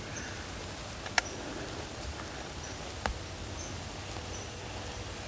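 Outdoor field ambience: a steady hiss with faint, short high chirps scattered through it, and two sharp clicks, one about a second in and another about three seconds in.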